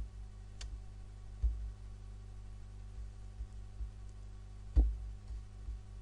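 Steady low electrical hum with a few soft clicks and two short low thumps, about a second and a half in and near five seconds in, the second louder: handling noise while a passage is being looked up.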